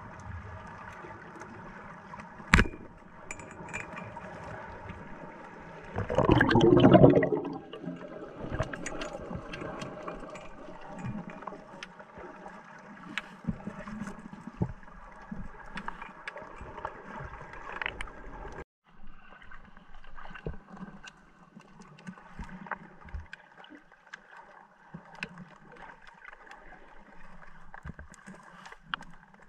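Underwater sound at a spearfisher's camera: a faint steady hum and scattered crackling clicks, with one sharp knock about two and a half seconds in and a louder rush of noise lasting about a second around six seconds in.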